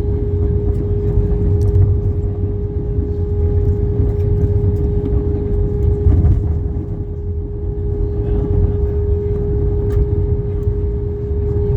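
Airbus A320-200 passenger cabin noise just after landing: a steady low rumble with a constant hum above it.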